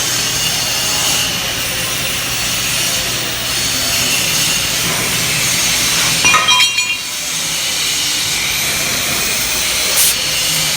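Oxy-fuel cutting torch hissing steadily while cutting, with a brief burst of sharp crackling about two-thirds of the way through and a single click near the end.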